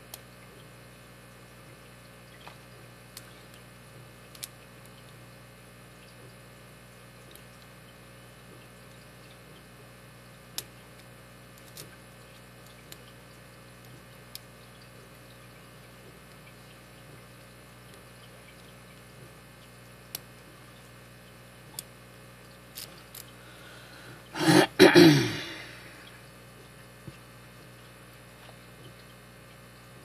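Faint, irregular metal ticks and clicks of a lock pick and tension wrench working the pins of a brass Master Lock V-line padlock. About twenty-five seconds in comes a brief, loud vocal noise from the picker, like a throat clearing.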